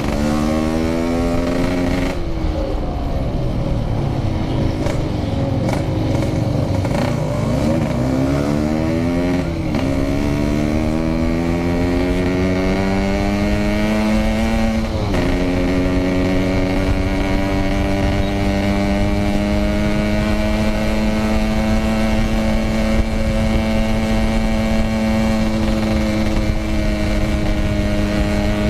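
Yamaha RX-King two-stroke single-cylinder motorcycle engine ridden hard: the revs climb, drop at an upshift about two seconds in, waver, climb again and drop at another upshift about halfway through, then hold a high, slowly rising note. A low rush of wind and road noise runs underneath.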